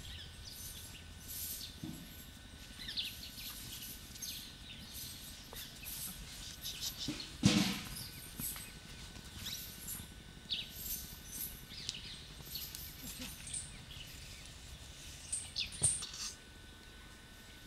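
Birds chirping on and off over outdoor background noise, with one loud thump about seven and a half seconds in and a few smaller knocks near the end.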